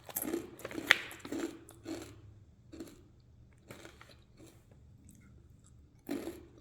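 A person biting into and chewing a crunchy seaweed-flavoured snack: a run of crunches in the first two seconds, the loudest about a second in, then slower, quieter chewing crunches, and another crunch near the end.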